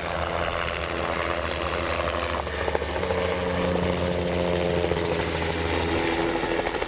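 Heavy-lift helicopter running steadily, with a fast, even rotor chop over a steady engine tone.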